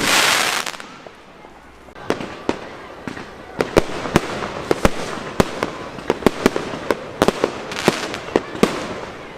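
Fireworks going off: a loud hissing rush that dies away within the first second, then from about two seconds in an irregular, rapid string of sharp bangs and cracks, several a second.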